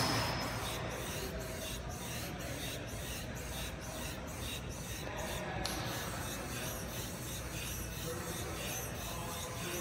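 SURGE 360 training platform worked rapidly: its resistance poles and cylinders give a rhythmic swishing noise, about three strokes a second. About halfway through, the strokes blur into a steadier noise.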